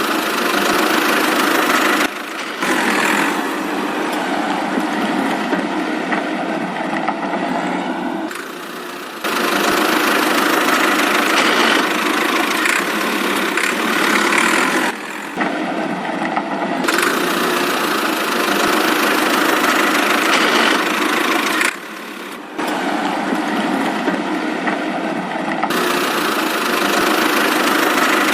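Engine-like motor sound running steadily in stretches, with abrupt cuts and changes in tone several times, as between edited clips. It is thin, with almost no low rumble.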